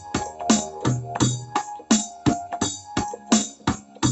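Background music: keyboard chords over a steady drum-machine beat, about three beats a second.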